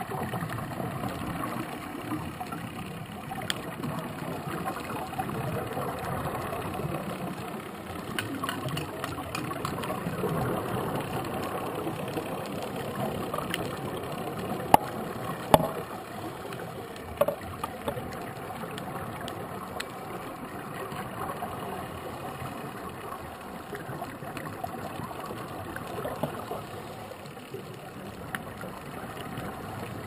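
Muffled underwater noise picked up by a diving camera: a steady rumble with a few sharp clicks, two of them loud about halfway through.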